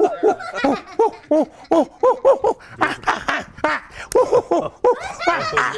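A man's wordless vocal performance: a quick run of short pitched hoots and grunts, each rising and falling, about three a second, turning breathier and noisier near the end.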